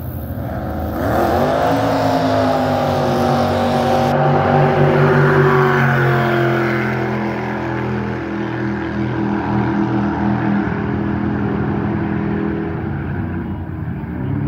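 Racing jet boat's engine at full throttle. It surges and rises in pitch about a second in, then stays loud while its pitch slowly slides lower.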